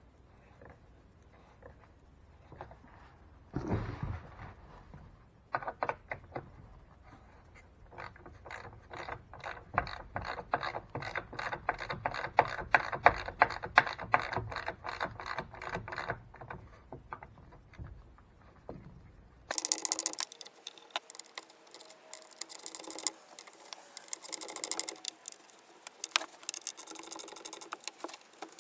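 Ratchet wrench clicking in long runs as nuts are tightened onto the bolts that hold plywood gussets to a wooden boat frame. There is a knock about four seconds in. From about twenty seconds the clicking turns thinner and faster.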